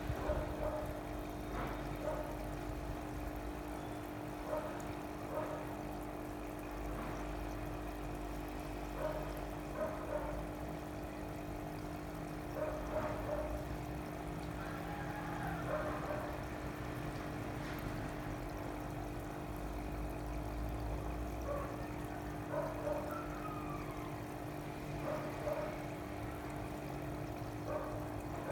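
Water pouring and trickling with irregular gurgles over a steady low hum.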